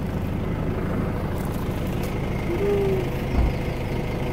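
Pickup truck engine idling steadily, with a low thump a little after three seconds in.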